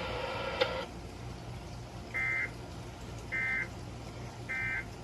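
EAS end-of-message code relayed from a NOAA Weather Radio broadcast: three short digital data bursts of SAME code, about a second apart, over a low steady hum. The bursts mark the end of the alert message.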